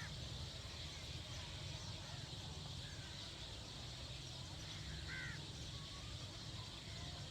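Outdoor ambience: a steady low rumble and hiss, with two short bird calls, one at the start and one about five seconds in.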